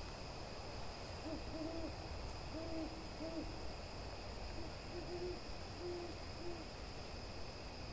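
An owl hooting faintly: about eight short, low hoots in loose groups of two or three over some five seconds.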